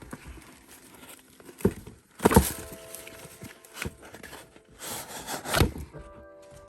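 Handling noise of a canvas sneaker having its insole pulled out: rubbing and scuffing, with a few knocks. The loudest scrapes come about two and a half seconds in and again around five and a half seconds.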